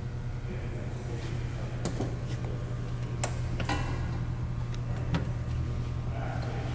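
A handful of sharp clicks and knocks, the loudest about two seconds in, over a steady low hum.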